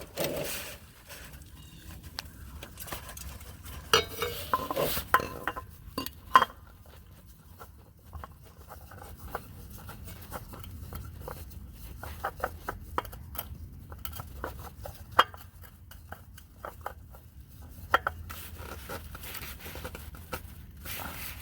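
Scattered light clinks, clicks and knocks of metal hand tools and oil filter parts being handled, with some rubbing, as spilled oil is cleaned up during an oil filter change.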